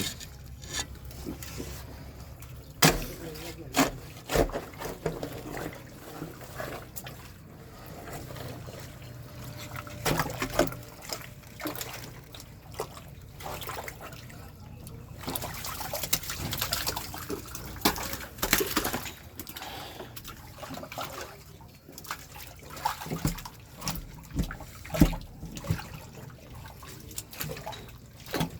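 Water trickling and splashing in a blocked drain, broken by irregular sharp knocks and clatters.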